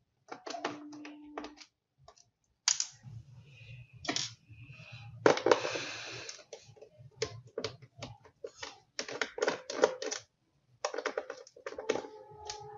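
Screwdriver and fingers working screws out of an ASUS X553M laptop's bottom case: irregular clicks, taps and scrapes on the case, with a denser scraping stretch about five seconds in.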